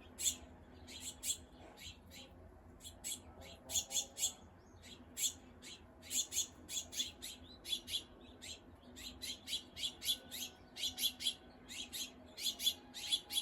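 A group of small birds in a shrub giving rapid, high-pitched chips and calls, several a second and overlapping, with no let-up. A faint steady hum sits underneath.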